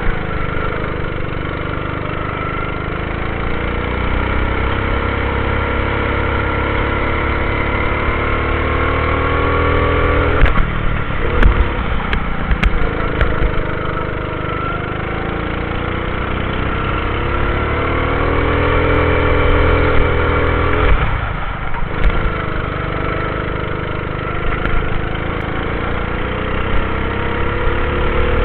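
Go-kart engine heard from a camera mounted on the kart, climbing in pitch along the straights and dropping off sharply twice where the driver lifts for corners. A few knocks and rattles sound around those drops.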